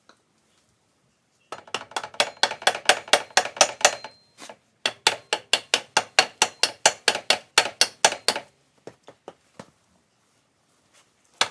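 Rubber mallet blows on the end of a Honda Recon ATV's steel rear axle, hammering it out through the axle housing to reach the bearings. Rapid, sharp clinking strikes at about five a second in two runs with a short pause between, a few lighter taps later, then the pounding starts again near the end.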